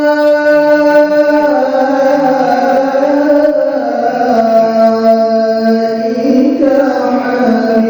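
Male qari chanting Qur'an recitation in a melodic style, holding long notes that glide slowly from pitch to pitch.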